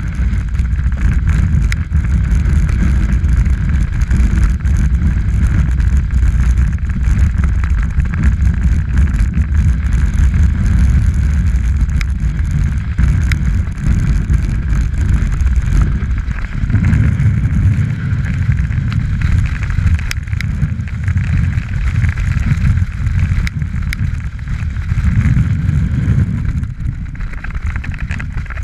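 Wind rushing over the microphone of a camera worn by a snowboarder on a fast run, mixed with the board scraping and hissing over packed snow. The rush dips and swells again a couple of times.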